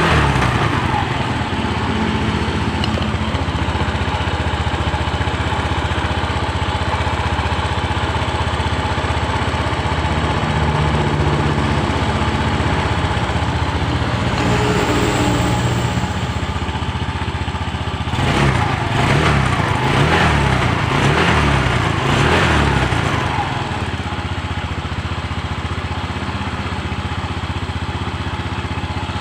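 Small motorcycle engine idling on its refitted carburetor, in a test run after a fix for fuel overflowing from the carburetor. It is revved up and down a few times about two-thirds of the way through, then settles back to idle.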